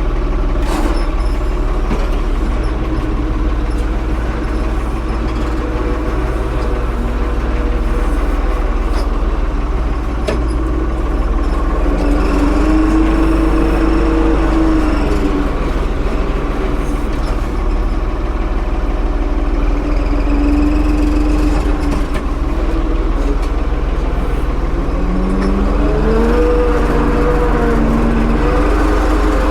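Tractor engine running steadily under work, with a whine that rises and falls several times as the load changes.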